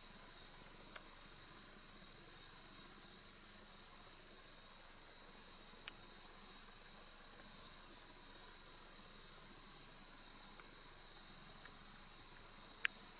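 Faint evening insect chorus, a steady high-pitched drone of crickets or similar insects. It is broken by a couple of tiny clicks and one sharp click near the end.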